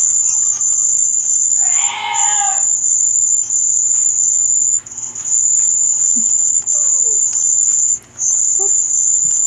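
Edited sound effects: a loud, steady, very high-pitched tone that breaks off briefly every one to two seconds. A short wavering voice-like sound comes about two seconds in.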